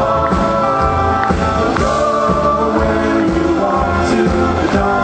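A band playing a song live, with singing over it.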